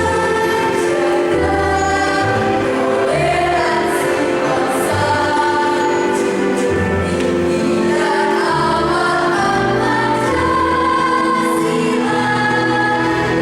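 A school choir singing in several parts, holding sustained chords that change every second or two, with crisp 's' consonants.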